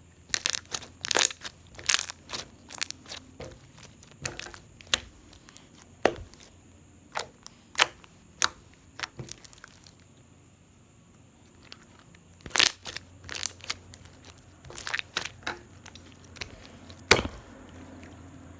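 Glossy slime being poked and squeezed by hand, giving sharp irregular clicking and popping sounds in clusters, with a short pause about halfway through and the loudest pop near the end.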